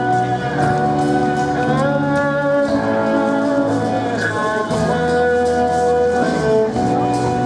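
Live band music: a violin plays the melody in long held notes that slide from one pitch to the next, over a steady bass guitar line.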